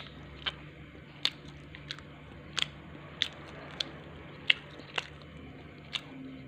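Close-up mouth sounds of someone eating pizza: about eight sharp, irregularly spaced chewing clicks and smacks, over a faint steady low hum.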